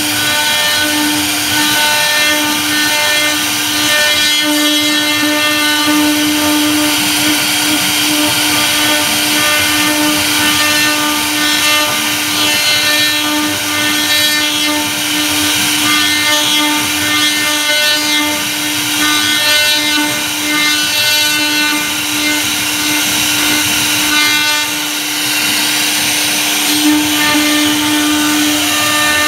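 CNC router spindle running with a steady whine while its V-bit carves grooves into a wooden board, the rasp of the cut running under the tone.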